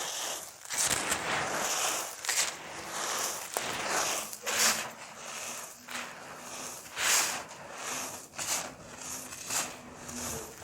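Dry crunchy cake being crumbled, a run of crisp crunches and crackles with louder snaps about four and a half and seven seconds in.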